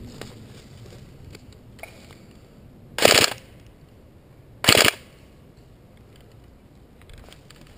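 Two short full-auto bursts from a Tokyo Marui G36C airsoft electric rifle, about three seconds in and again a second and a half later, each a quick rattle lasting about a third of a second.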